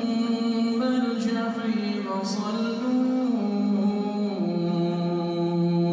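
A man's voice reciting the Quran in a melodic chanted style, unaccompanied, with long held notes sliding from pitch to pitch. It settles on a long low note near the end.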